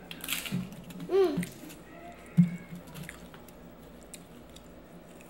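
Hard-shell taco crunching as it is bitten and chewed, with small crackles throughout. A short hummed voice sound comes about a second in, and a sharp knock, the loudest sound, comes about halfway through.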